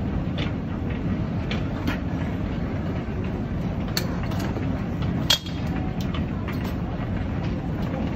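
Airport baggage carousel running with a steady low rumble and clatter. Several sharp clicks and knocks from a scooter suitcase being handled and unfolded sound over it, the loudest about five seconds in.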